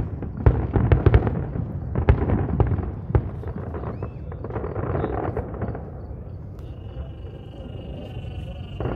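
Fireworks going off: a rapid run of sharp bangs and crackles in the first few seconds, thinning out toward the middle. A steady high-pitched tone sounds for about the last two seconds.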